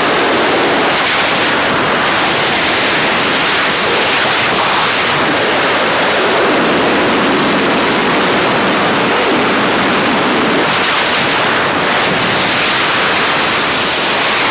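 Freefall wind rushing over a camera microphone at wingsuit flying speed: a loud, steady rush of noise with slight swells.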